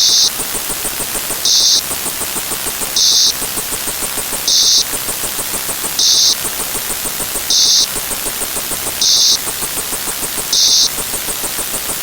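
Looping electronic sound effect: static-like noise with a fast rattle, punctuated by a short, loud high hiss about every second and a half.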